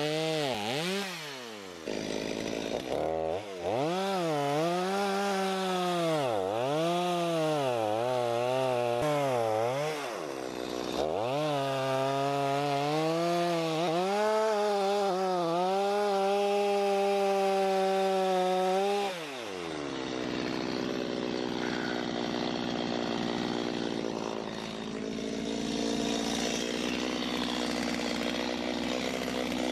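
Stihl two-stroke chainsaw cutting into a tree stump, its engine pitch dipping and rising again and again as it works the cut. About two-thirds of the way through it drops to a steady idle, then revs up again at the very end.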